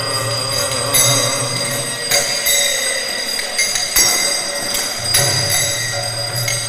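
Temple arati music: bells and metal hand cymbals ringing, struck about once a second, over a low steady tone that drops out in the middle and returns about five seconds in.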